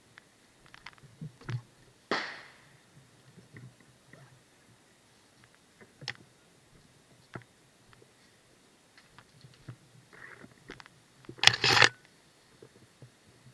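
Scattered light clicks and knocks, a single sharp crack about two seconds in, and a loud half-second clatter of rapid strikes near the end.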